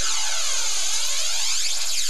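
Electronic dance music build-up played by a DJ through the PA: a loud hissing synth noise that sweeps up and down over and over with a whooshing, swirling sound and almost no bass.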